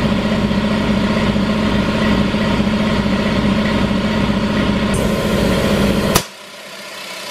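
Charge Air Pro 60-gallon vertical air compressor's electric pump running steadily. About five seconds in a hiss of escaping air joins as the compressor's line pops off its worn compression fitting again, and about a second later the motor stops abruptly at a sharp pop, leaving a fainter hiss.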